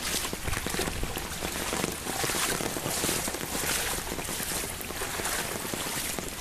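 Heavy rain and overflowing lake water rushing across a road: a loud, steady roar of noise that swells and eases about once a second.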